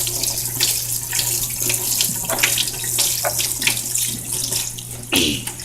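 Water running from a sink tap and splashing irregularly as a small dog is rinsed of soap in the sink.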